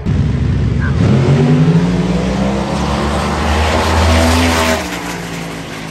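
Drag-race cars launching down the strip at full throttle: a sudden loud start, the engine note climbing for about four seconds, then cutting off and fading away.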